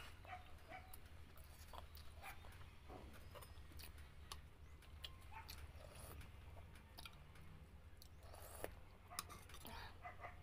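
A person eating close to the microphone: faint chewing with scattered small mouth clicks and smacks, over a low steady hum.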